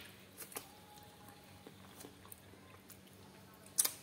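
Opened durian husk segments being moved and set down on a tiled floor: a few faint light knocks, then one sharp knock near the end.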